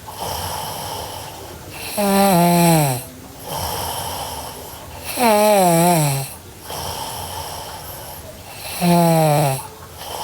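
A sleeping girl snoring in a steady rhythm: three loud snores, each about a second long and dropping in pitch, come about every three and a half seconds. Each is followed by a quieter, longer breathy rush of air.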